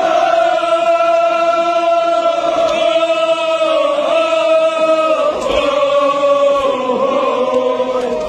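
Men's voices chanting a slow mourning lament in long held notes that sink gradually in pitch, several voices overlapping in the second half.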